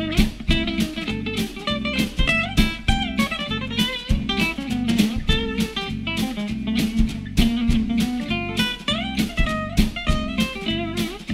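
Background music: a guitar tune over a steady beat.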